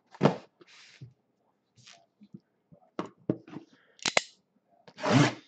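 Handling of a shrink-wrapped cardboard box while its plastic wrap is cut: scattered taps and rustles of plastic and cardboard, a pair of sharp clicks about four seconds in, and a longer rustle near the end.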